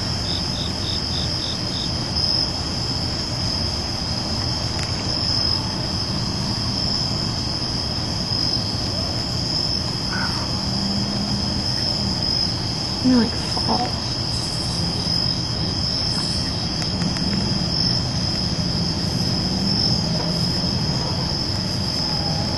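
Crickets chirping in a steady high trill, with a second cricket giving short pulsed chirps for the first couple of seconds. A brief louder sound cuts in about thirteen seconds in.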